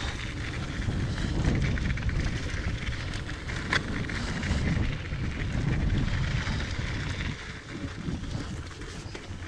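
Diamondback Mission 2 mountain bike on a fast descent of a rough dirt trail: a steady low rumble of wind on the microphone and tyres over the ground, with one sharp click about four seconds in.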